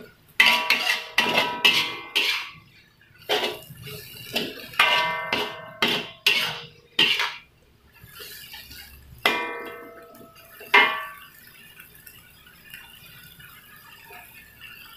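Metal spatula scraping and striking a large aluminium wok while stir-frying water spinach, many strokes leaving a short metallic ring. The strokes come in quick runs and stop about eleven seconds in.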